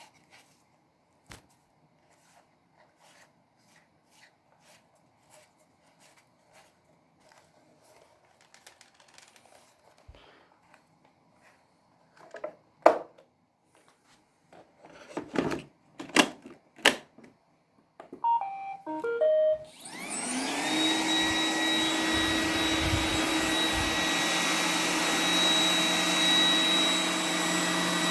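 Several sharp knocks, then the Roomba 980 robot vacuum plays its short start-up tune of beeps. Its vacuum motor then spins up, rising in pitch, and settles into a steady rushing run with a high steady tone as it starts cleaning.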